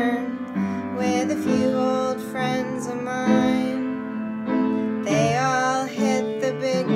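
A woman singing a verse of a folk song, accompanied by piano.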